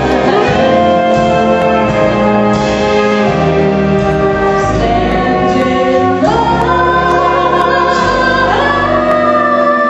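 A woman singing with instrumental accompaniment, holding long notes that step up to higher ones about six seconds in and again near the end.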